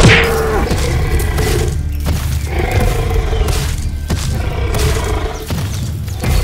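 Cartoon dinosaur roar sound effects over background music.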